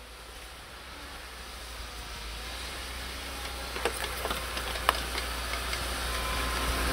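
UAZ Patriot SUV approaching over snow, its engine rumble and tyre noise growing steadily louder as it nears, with a few sharp clicks about halfway through.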